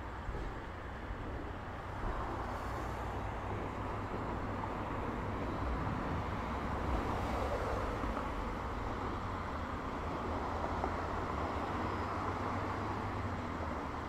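Road traffic: cars passing on a multi-lane road, a steady wash of tyre and engine noise that swells about seven seconds in as cars pass close by.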